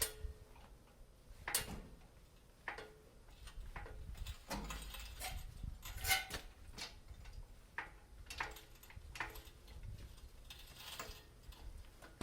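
Irregular light clicks and knocks, a dozen or so at uneven intervals, a few leaving a short, faint ring.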